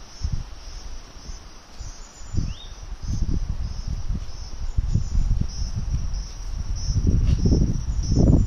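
Insects chirping in a high, pulsing chorus, with one short rising chirp about two and a half seconds in. A low rumbling noise, like wind or handling on the microphone, builds up and is loudest near the end.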